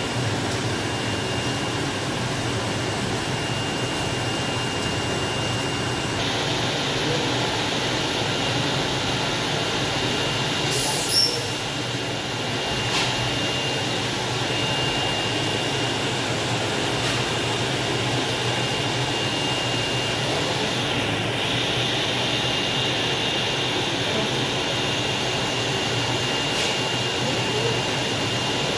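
Flatbed digital cutting plotter running steadily as its knife head cuts large-format die-cut vinyl stickers: an even machine whir with a faint high whine, and one brief sharp click about eleven seconds in.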